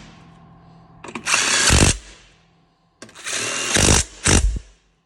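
Power tool running in two bursts of about a second each, tightening bolts; each burst ends in a few sharp hits as the bolt seats.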